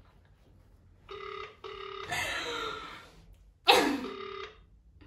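Outgoing phone call ringing on speakerphone: a double ring tone, two short steady beeps in quick succession, with a further ring near the end. Short loud noisy bursts come between the rings, the loudest just before the last one.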